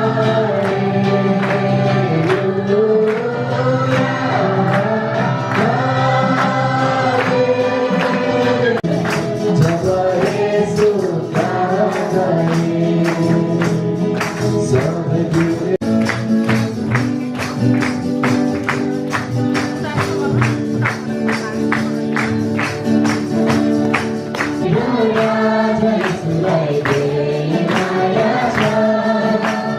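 A group of voices sings a worship song to a steady beat, with a tambourine shaking in time. The percussion becomes more prominent about a third of the way in.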